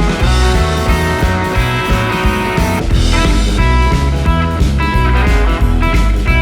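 Background music: a guitar-led rock track with a steady bass line.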